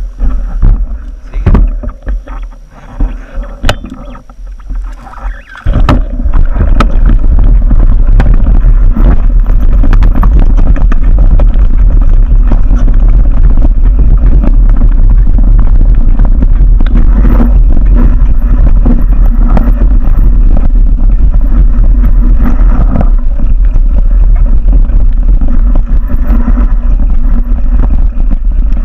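Mountain bike on a rough dirt trail, heard through a handlebar-mounted camera: scattered clicks and knocks at first, then from about six seconds in a loud, constant rumble and rattle of vibration and wind on the camera as the bike picks up speed.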